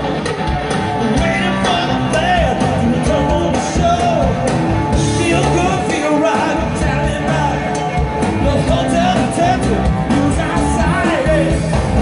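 Live rock band playing loud through a PA system, with a voice singing over the band, heard from within the audience.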